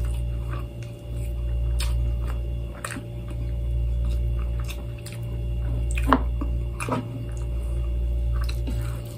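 Eating by hand: chewing and the squish of grilled chicken being pulled apart with the fingers, with a few sharp clicks, over a low rumble that dips every two seconds or so.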